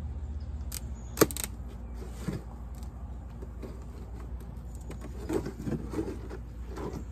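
Metal hive tool prying and scraping at the joint of a wooden beehive box, cracking the propolis seal: a sharp click about a second in, then scattered scrapes and small cracks with a cluster of them near the five-second mark.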